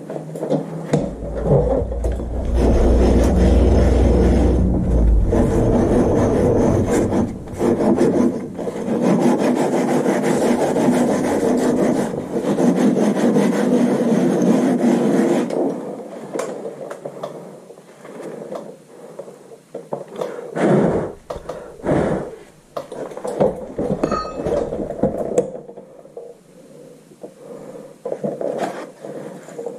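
Abrasive scrubbing on metal brake parts, the kind of work done to clean rust and grime off a hub or caliper during a rear brake service. Steady rubbing carries on for about fifteen seconds, then gives way to shorter scrapes and knocks.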